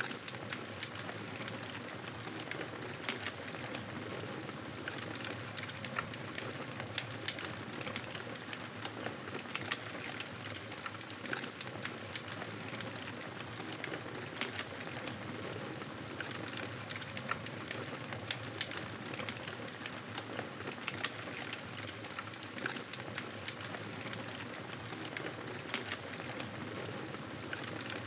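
Wood campfire crackling: a steady hiss dotted with many small sharp pops and snaps.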